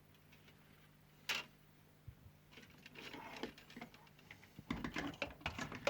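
Small tools and parts being handled on a workbench: a sharp click about a second in, then light clatter and rustling that grows busier and louder near the end.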